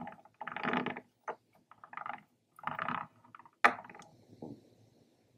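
Plastic toy minibike's shuriken weapon clicking and clattering in short bursts as its tailpipes are squeezed, with one sharp snap about three and a half seconds in.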